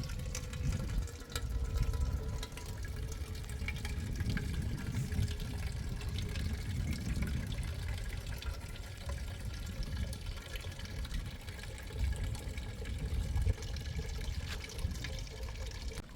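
Water splashing and trickling with scattered drips, over a steady, gusting low rumble.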